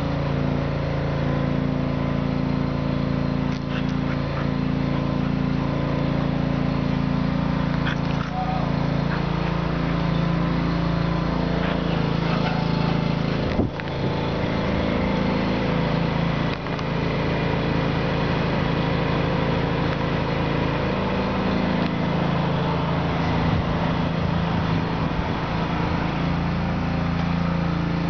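A motor running steadily, an even low drone with a couple of brief dips in the middle.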